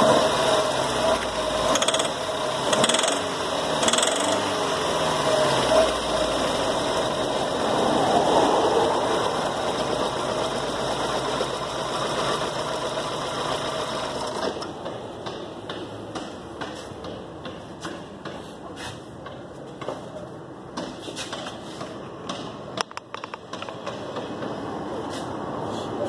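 Volkswagen Gol four-cylinder engine running with a rhythmic rattling knock. The knock is pinging from ignition timing thrown off after the timing belt jumped a tooth or two, not a rod knock. A little over halfway through, the engine sound drops away sharply, leaving faint clicks.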